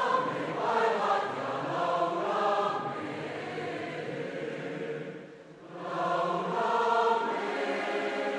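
Choir singing in sustained chords. One phrase fades about five seconds in and the next begins a moment later.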